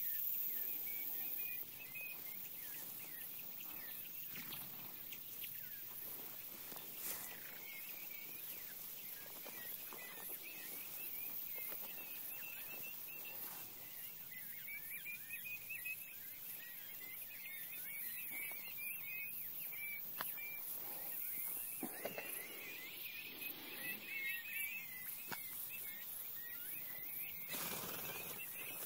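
Many young quail peeping: a steady stream of short high chirps, overlapping, with scattered rustles and knocks of brush.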